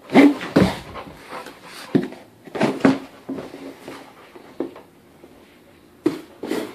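Cardboard shipping box being pushed, nosed and mouthed by an English cream golden retriever: irregular clusters of scraping, knocking and rustling. They come at the start, again around two to three seconds in, and once more near the end, with a quieter stretch before it.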